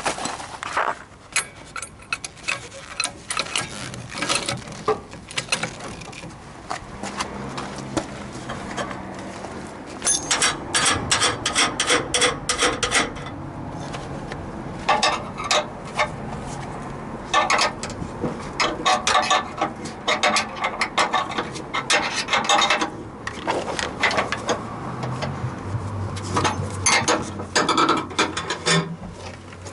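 Hand ratchet wrench clicking in runs of rapid strokes, with short pauses between the runs.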